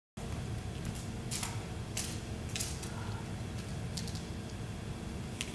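Steady low room rumble with a few sharp, scattered small clicks, about one every second or so.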